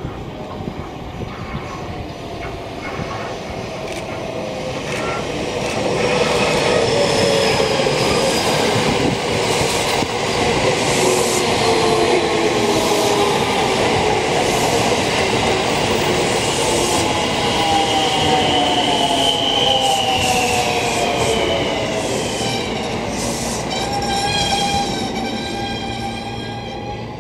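A JR West 223 series electric train passing, its wheels rumbling and clattering on the rails. Motor whine glides in pitch, several tones falling, and it grows loud as the train passes, then fades.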